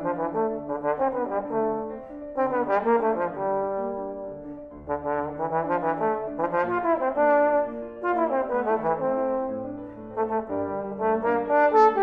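Trombone playing a slow classical melody with grand piano accompaniment, in phrases of held and moving notes with short breaks between them.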